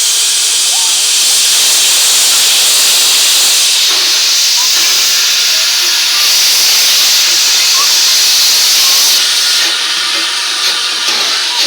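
Steam locomotive letting off steam: a loud, steady hiss that eases a little about nine seconds in.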